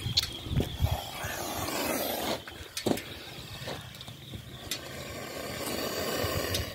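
A cobra hissing in long breaths of about two seconds each, with a pause in between. A few sharp knocks near the start and one about three seconds in come from handling the snake hook and phone.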